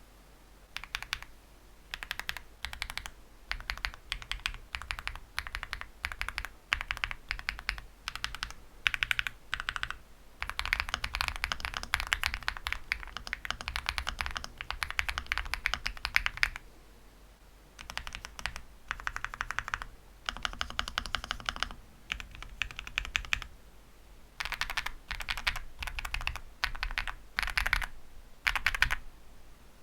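Typing on a mechanical keyboard fitted with Gateron Smoothie linear switches, an FR4 plate and Cherry-profile PBT keycaps, with lubed stabilisers. Runs of quick keystrokes come in bursts with short pauses, and a long fast run falls in the middle.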